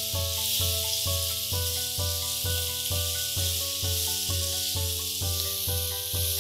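Background music with a steady beat: a pulsing bass note nearly three times a second under chords that change with the beat, over a steady hiss.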